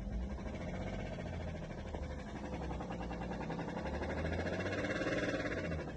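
BMW X3 35d's three-litre straight-six diesel running at idle with a fast, even rhythmic noise over its steady note. This is the engine noise whose cause the owner is asking about.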